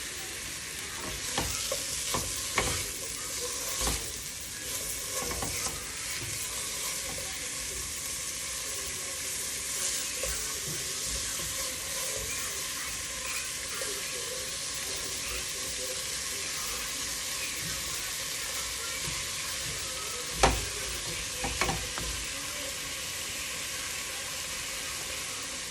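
Chicken pieces sizzling steadily as they brown in a hot pot, with a utensil stirring and now and then knocking against the pot; the loudest knock comes about twenty seconds in.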